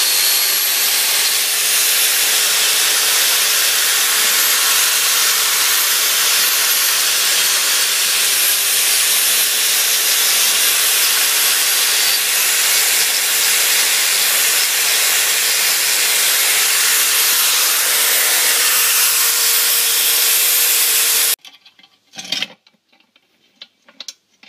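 Angle grinder with a cup brush scouring rust off a cast iron stove part: a steady, loud grinding hiss over the motor's even hum. It stops abruptly near the end, leaving a few faint knocks.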